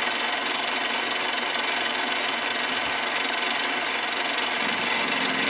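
Mini lathe running while turning a 12L14 steel bar: a steady hiss of the cut over the faint whine of the motor and spindle. The cut is going well.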